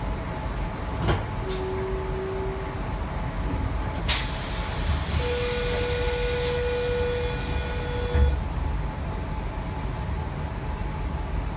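Tangara train's passenger doors opening at a platform: a click and a short tone, then a loud clack about four seconds in, followed by about three seconds of air hiss with a steady tone, ending in a thump as the doors come fully open.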